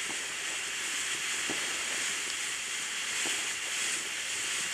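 Firework fountain spraying sparks with a steady hiss, a few faint crackles now and then.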